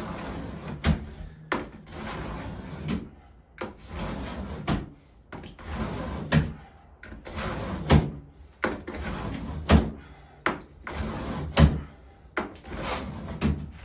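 A utility knife scoring a line in HardieBacker cement backer board, drawn along the same line over and over. The strokes come about one every one to two seconds, each a scrape ending in a sharper knock. The repeated passes deepen the score so the board will snap cleanly along it.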